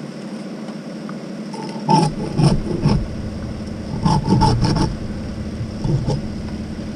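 An engine runs steadily underneath, with clusters of knocking and scraping about two, four and six seconds in.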